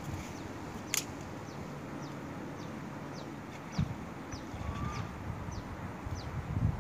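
A small bird gives a run of short, high, falling chirps, about two a second, over a steady low outdoor rumble. There are a couple of dull low thumps, one about four seconds in and one near the end.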